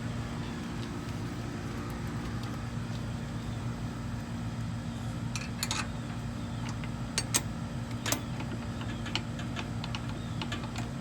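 A few sharp metal clicks and clinks from tools and parts being handled during a motorcycle rear-wheel refit, most of them in the second half, over a steady low hum.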